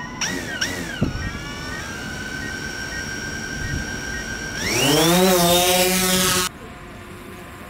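DJI Phantom 4 Pro quadcopter's electric motors and propellers spinning up and idling with a steady high whine. About four and a half seconds in they spool up for takeoff, rising in pitch and growing louder. The sound cuts off abruptly about a second and a half later.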